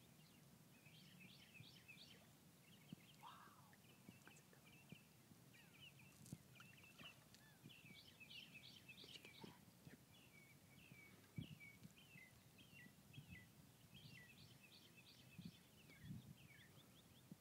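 Faint birdsong: repeated bursts of quick, high chirping notes in short runs, over a quiet low background hum, with a few soft thumps.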